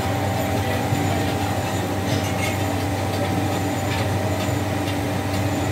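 Steady drone of a foundry cupola furnace's air blower running, holding several low tones at an even level, with a few faint clicks over it.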